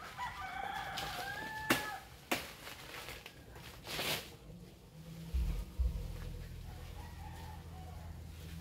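A rooster crowing: one long call in the first two seconds that holds its pitch and then falls away at the end. A few sharp cracks come through it, and a strong low rumble sets in about five seconds in.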